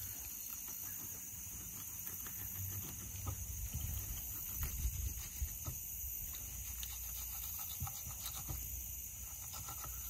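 Knife filleting a trout on a wooden cutting board: faint, scattered crunches and clicks, clustered in the middle, over a steady low rumble and a steady high hiss.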